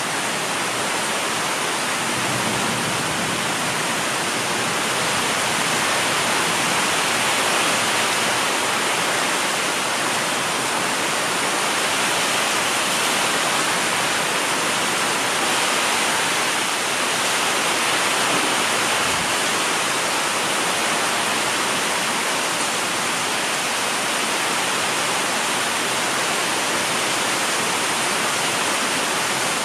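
Heavy rain pouring down in a thunderstorm, a dense, steady hiss.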